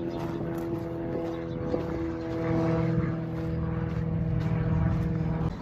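A propeller plane's engine running steadily overhead, with a fixed, even pitch that swells from about two seconds in and cuts off abruptly near the end.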